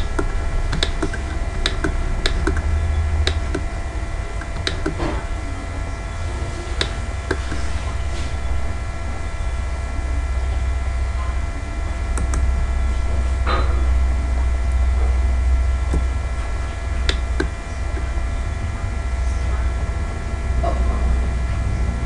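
Steady low electrical hum with scattered sharp clicks from a computer mouse and keyboard, a click every second or two.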